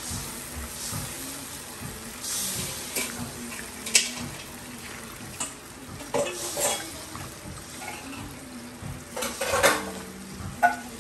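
A spatula stirring and scraping a thick sauce in a nonstick wok, with irregular scrapes and taps against the pan over a low sizzle from the simmering sauce.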